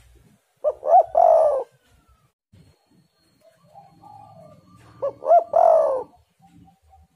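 Spotted dove cooing twice, each phrase two short notes followed by a longer, rolling coo. The first comes just under a second in, the second about five seconds in.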